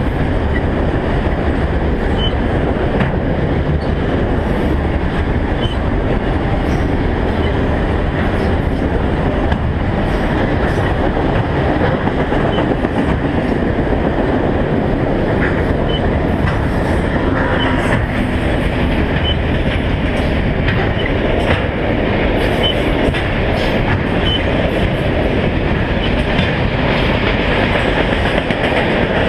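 Freight cars of a long CSX train rolling past at a steady pace, the wheels rumbling and clattering over the rails.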